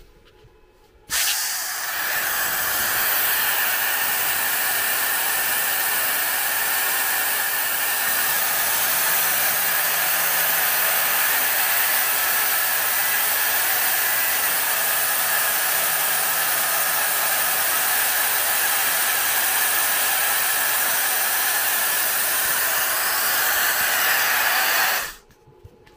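Steady loud hiss of air-assist air blowing through the nozzle of a Neje 40 W dual-diode laser module as it cuts plywood. It starts suddenly about a second in and cuts off just before the end, with faint whining tones partway through.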